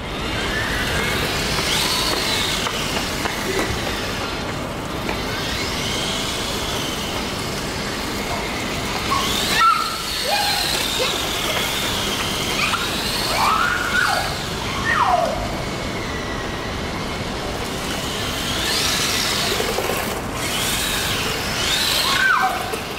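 1:10 scale HSP Flying Fish RC drift car's electric motor whining up and down in pitch as it accelerates and slows while drifting, over a steady hiss.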